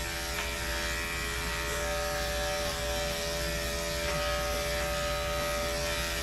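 Electric dog-grooming clipper fitted with a 4F blade, running with a steady buzz as it clips the fur on a dog's leg.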